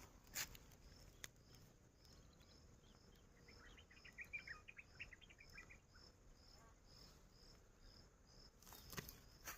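Faint cricket chirping, a steady high chirp about twice a second. A short cluster of quicker high chirps comes in about the middle, and there are a couple of faint clicks.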